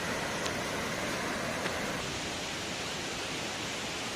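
Waterfall's steady rushing water, an even noise with no changes.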